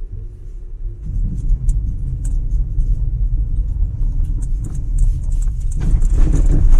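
A car running, a steady low rumble with scattered small ticks, getting louder near the end.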